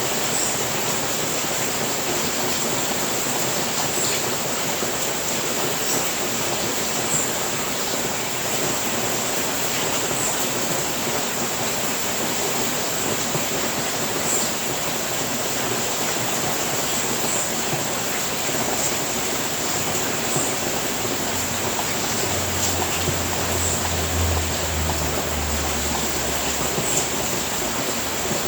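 Steady, even rain falling. About two-thirds of the way through, a low rumble joins for about five seconds.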